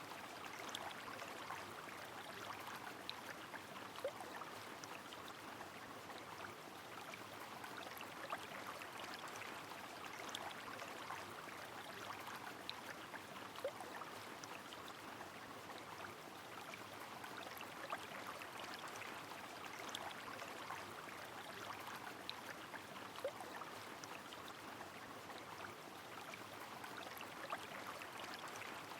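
Steady rush of a flowing river mixed with falling rain, with scattered sharp ticks and an occasional brief plink of drops.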